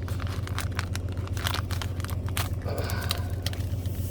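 Plastic MRE packaging crinkling and tearing, with scattered sharp clicks and two short rustles, over a steady low hum.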